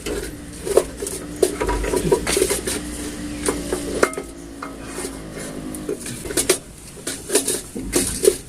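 Metal tools and parts clinking and knocking irregularly during clutch disk replacement on a manual transmission.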